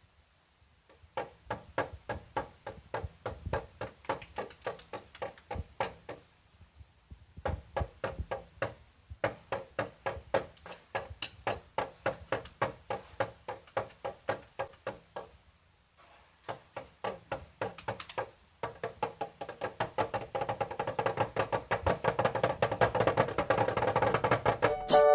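Rhythmic wood-block-like percussion, sharp knocks at about three to four a second with a few short breaks, growing denser and louder with sustained tones near the end.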